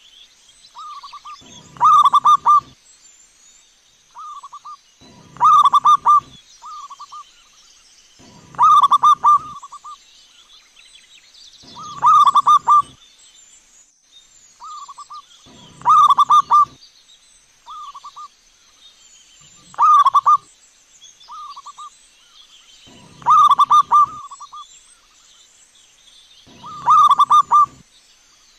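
Zebra dove (perkutut) cooing. A quick, rolling coo phrase repeats about every three and a half seconds, with shorter, softer notes between the phrases.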